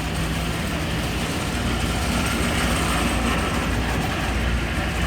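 Tour boat's engines running with a steady low drone under a broad, even rush of noise.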